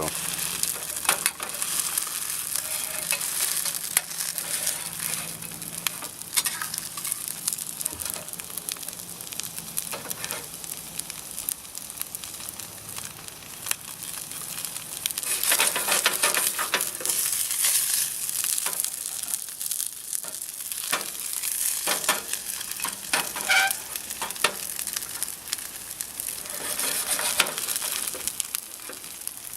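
Grits cakes frying in hot oil in a mess-kit frying pan, a steady sizzle full of small crackling pops that swells louder for a few seconds about halfway through and again near the end.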